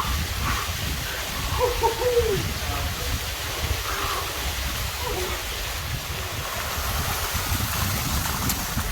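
Small, slow-flowing waterfall splashing steadily onto rock. A faint voice is heard about two seconds in.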